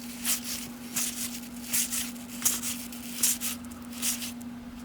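Cardboard baseball cards being flipped through one by one, a short papery swish as each card slides off the stack, about two a second, over a steady low hum.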